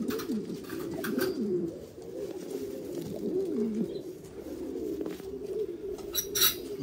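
Buchón pouter pigeons cooing continuously, several at once in overlapping low, wavering coos, with a few light clicks.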